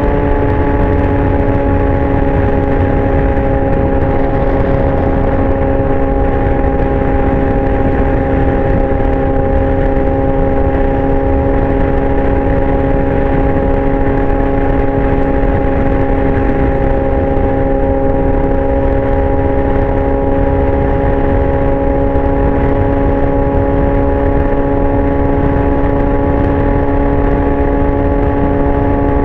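2019 Yamaha R6's inline-four engine through a Leo Vince exhaust, holding a steady high-pitched note at constant throttle, with a continuous low rush of wind and road noise underneath. The pitch eases down slightly at the very start, then stays level.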